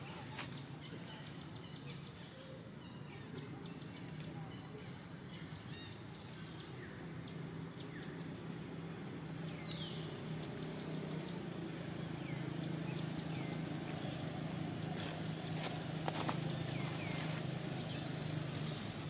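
Wild birds calling: short, rapid trills of high chirps repeated every second or two, with a few quick falling whistles, over a steady low hum.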